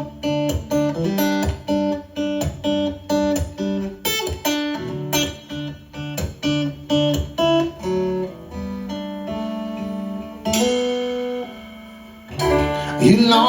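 Guitar playing a song's instrumental intro: a run of evenly repeated chords for about eight seconds, then longer held chords, and a louder swell near the end.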